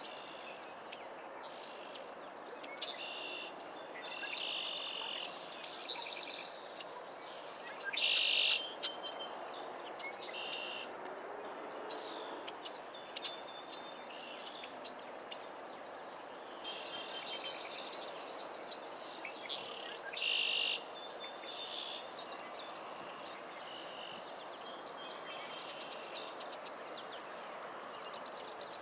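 Birds chirping in short high calls every few seconds, the loudest about a third of the way in and again past two-thirds, over a steady background hiss of the marsh.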